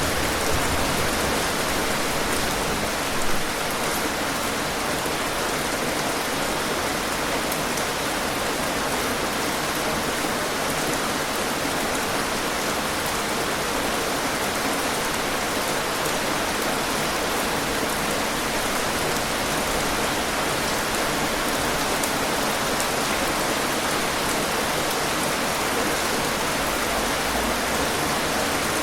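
Heavy rain falling steadily, a dense even hiss of drops, with one brief louder patch about three seconds in.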